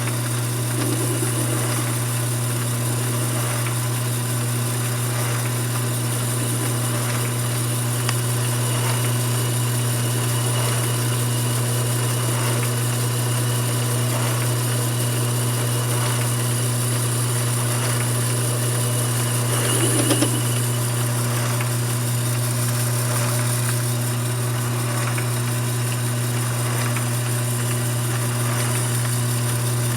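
Mini lathe running steadily, its motor giving a constant low hum. A brief, louder noise comes about twenty seconds in.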